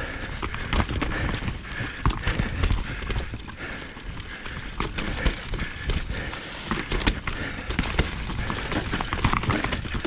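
Mountain bike descending a rough dirt and rock trail at speed: tyres rumbling over the ground while the bike rattles and clatters in quick, irregular knocks, with wind buffeting the microphone.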